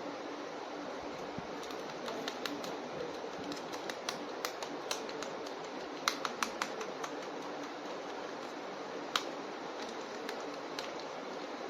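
Sharp plastic clicks and taps from a toy action figure being handled, in irregular small clusters with one louder click near the end, over a steady background hiss.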